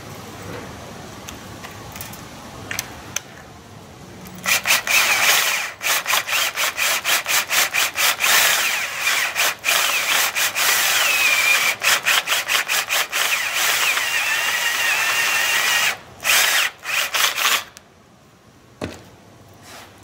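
Cordless drill boring a hole through sheet metal, starting about four seconds in: at first pulsed in many quick bursts, then running steadily with a high squeal from the bit cutting metal, and a few short bursts before it stops near the end.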